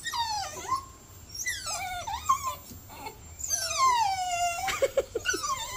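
Small dog whining: about three long, high whines that fall in pitch, and a short one near the end. It is the eager whining of a dog that wants to chase rabbits.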